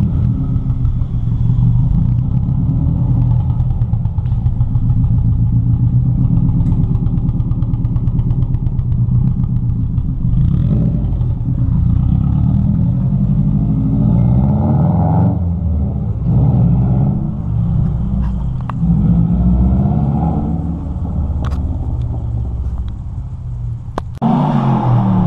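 Subaru Impreza GC8's freshly rebuilt flat-four boxer engine running: a steady idle at first, then from about ten seconds in it revs up and down repeatedly.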